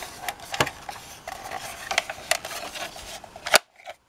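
Hard plastic of a vintage Kenner A-Wing Fighter toy being handled: light rubbing with several sharp plastic clicks, the loudest about three and a half seconds in, after which the sound briefly drops out.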